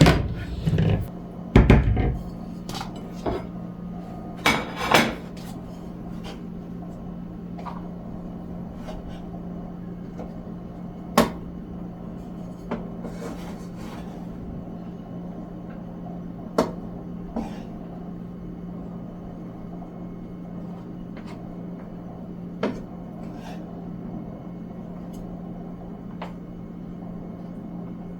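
Kitchen clatter of dinner being served onto a plate: dishes, pots and utensils knocking and clinking, busiest in the first few seconds, then single sharp clinks every few seconds. A steady low hum runs underneath.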